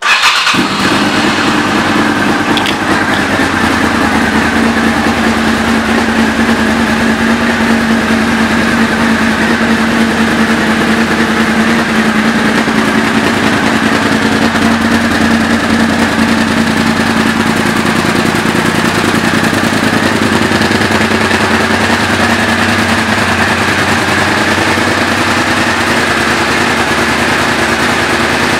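A 1997 Suzuki TL1000S's 90-degree V-twin engine idling steadily through a Two Brothers Racing aftermarket exhaust. The loud, even idle cuts in abruptly at the start.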